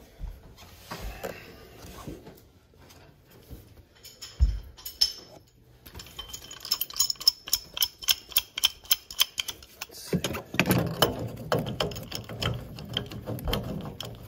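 Metal hand tools clinking and rattling while a tool bag is rummaged through for a pipe wrench. There are a few knocks first, then a fast run of metallic clicks with a ringing jingle from about six seconds in, and a rougher, lower rattle near the end.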